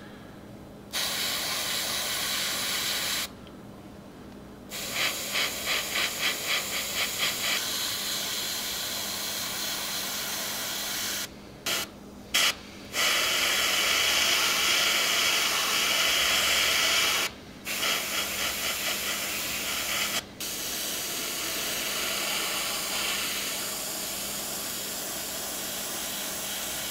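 Gravity-feed airbrush spraying paint in on-and-off spells of hiss, the air cutting off several times and fluttering in quick pulses where the trigger is feathered.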